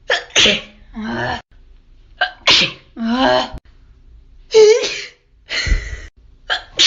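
A woman sneezing over and over, about six loud sneezes in quick succession, each a sharp burst with a voiced cry.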